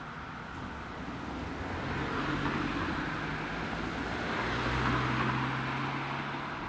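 Road vehicles passing with engine hum and tyre noise, swelling about two seconds in and again around five seconds.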